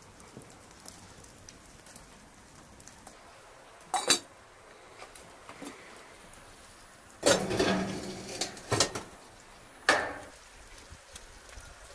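Enamel cooking pot knocking and clinking as it is handled and set down on a metal stove top: a couple of knocks about four seconds in, a spell of clatter in the middle, and a sharp metal clank with a short ring near the end as the pot comes to rest.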